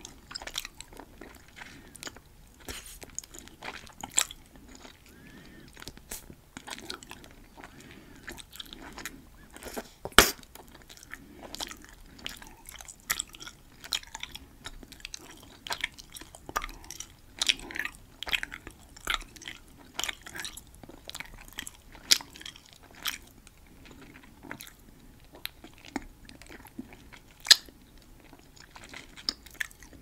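Hubba Bubba Max bubble gum being chewed close to a microphone: a steady run of mouth clicks and smacks, with louder sharp snaps about ten, twenty-two and twenty-seven seconds in.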